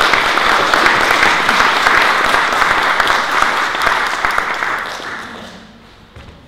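Audience applauding at the end of a talk, the clapping dying away about five seconds in.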